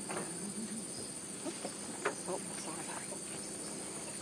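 Rainforest insects giving a steady high-pitched drone, with a few brief sharp sounds; the loudest comes about two seconds in.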